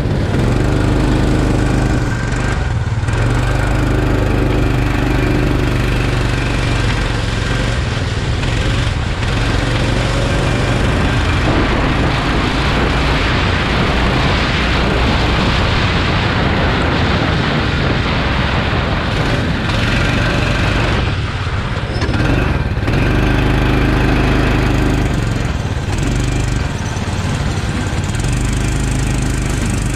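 Go-kart engine running hard at speed, heard from on board the kart over a steady rush of noise. The engine note dips briefly about three seconds in and again around twenty-one seconds in, then picks back up.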